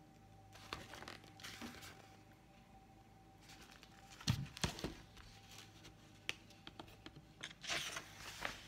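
Paper picture book being handled and its pages turned: soft paper rustling, a few light knocks about halfway through, and a longer rustle of a page turn near the end.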